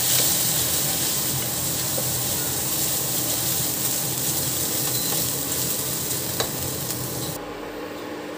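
Ginger-garlic paste, onion and turmeric sizzling in hot oil while a wooden spatula stirs and scrapes the pan, with a few light taps. The high sizzle hiss drops out abruptly near the end.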